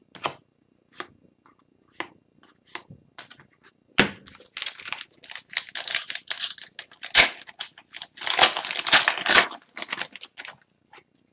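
Hockey card pack being handled: a few light taps and clicks, then from about four seconds in several seconds of tearing and crinkling of the foil pack wrapper.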